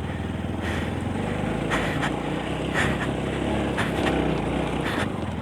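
Bajaj Pulsar NS200's single-cylinder engine running steadily.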